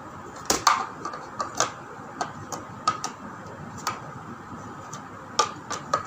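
Irregular sharp plastic clicks and clacks from a vegetable chopper's blade plate being handled and worked loose from its plastic base, about a dozen in all, the loudest about half a second in.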